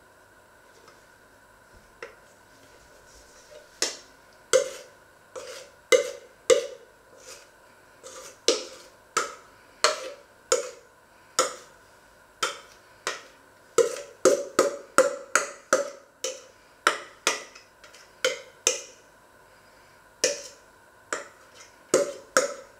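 Metal spoon scraping and knocking against a stainless steel mixing bowl as sticky dough is worked out of it into a cast-iron pot: irregular sharp knocks, often several a second, beginning about two seconds in.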